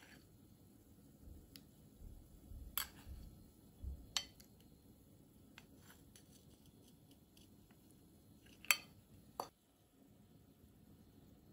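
Kitchenware handled on a countertop: a metal ladle clinking in a ceramic bowl and glass dessert cups being moved, giving a few sharp, isolated clinks, the loudest about nine seconds in.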